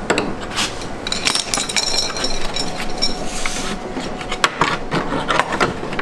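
An LG washing machine's plastic front panel being worked and pushed into place: plastic scraping and rubbing against the cabinet, with many small clicks and knocks and a squeaky scrape from about one to nearly four seconds in.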